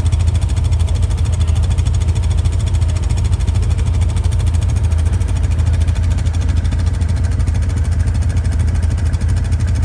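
Off-road vehicle engine running steadily while driving slowly along a dirt trail, heard from on board: a loud low drone with a fast, even throb that holds without change.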